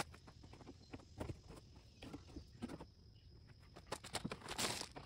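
Footsteps crunching on gravel, irregular and fairly quiet, with a longer rustle or scrape about four and a half seconds in.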